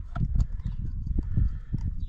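Irregular low clunks and a few sharp clicks of a spark plug socket and extension being handled while a new spark plug is threaded in by hand.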